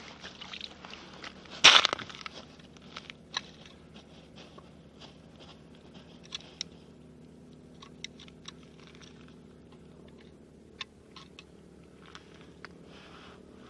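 Crunching and scattered clicks of snow and ice under boots or gear on the ice, with one loud sharp crunch about two seconds in.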